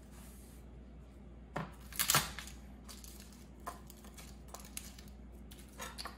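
Garlic cloves being peeled by hand on a plastic cutting board: the papery skins crackle and tear, with a few light clicks and taps on the board, the loudest about two seconds in.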